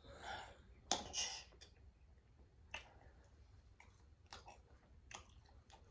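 Close-miked chewing of a mouthful of food: soft wet chewing in the first second and a half, then faint mouth clicks about once a second.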